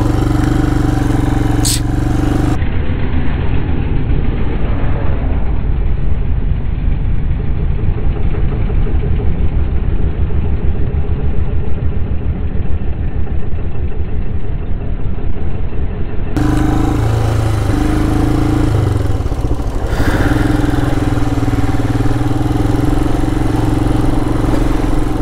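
Motorcycle engine running at low speed, a steady hum heard from the rider's seat. For a long stretch in the middle the engine tone gives way to a dull, dense rumble with the treble cut off, and the even hum comes back near the end.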